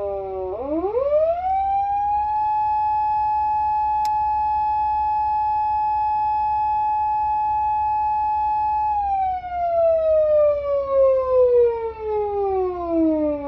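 PATLITE SAP-500BK electronic siren worked by foot switch: the tone dips, winds up quickly to a steady high pitch, holds there for about seven seconds, then slides slowly back down as the switch is let go. A single sharp click about four seconds in.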